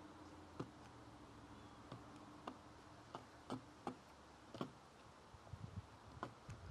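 Crow's bill pecking at peanuts on a wooden platform feeder: about ten faint, sharp taps at irregular intervals.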